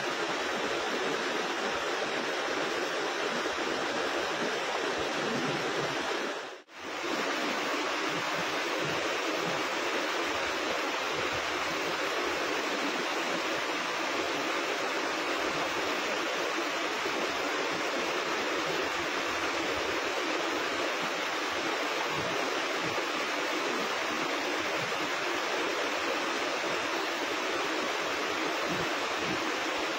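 River water rushing steadily, a constant noise that drops out for a moment about seven seconds in.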